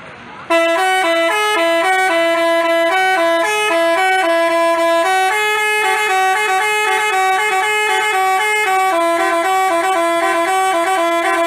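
Telolet basuri bus horn playing a melody of quick stepping notes, starting about half a second in.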